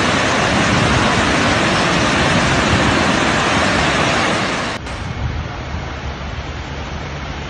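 Loud, steady rush of a muddy flash-flood torrent pouring down a street. Nearly five seconds in it cuts abruptly to a quieter, duller steady rushing noise.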